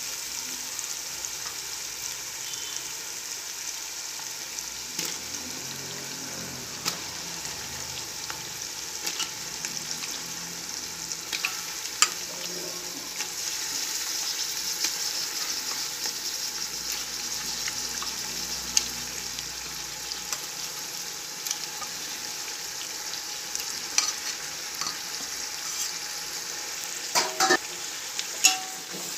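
Onions and raw chicken frying in oil in a large metal pot, a steady sizzle, with scattered clinks and scrapes of a steel ladle against the pot as it is stirred, several close together near the end.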